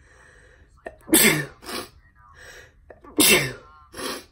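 A teenage boy sneezing twice, about two seconds apart, each loud sneeze followed by a shorter burst. He puts the sneezing down to being allergic to something.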